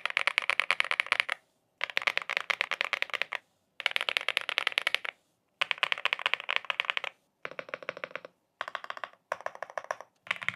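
Fast typing on a custom mechanical keyboard (Volt 2.0 Plus build): rapid runs of key clacks in spells of about a second and a half, cut apart by brief silences, as a sound test of the finished board.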